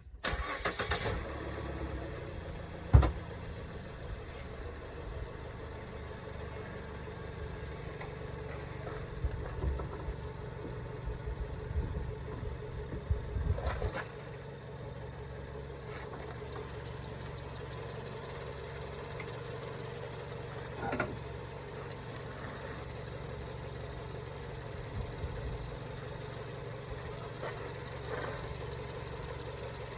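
2014 Ford Escape's 1.6-litre four-cylinder engine idling steadily. There is a sharp knock about three seconds in and a few lighter knocks a little later.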